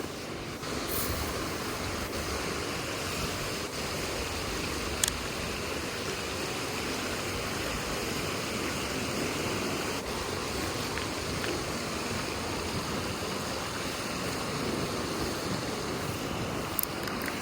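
Steady rushing of flowing river water, with two sharp clicks, one about five seconds in and one near the end.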